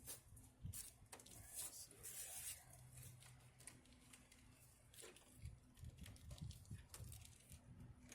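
Near silence: faint scattered clicks and rustles over a low steady hum, with a cluster of small knocks in the second half.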